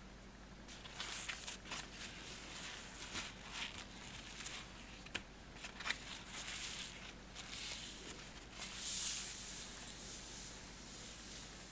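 Paper towel rustling and wiping across a countertop in irregular short scrapes, with a few light clicks.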